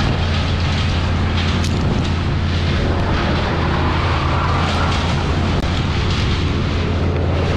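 A small engine running steadily at one constant speed, a low even hum with no revving.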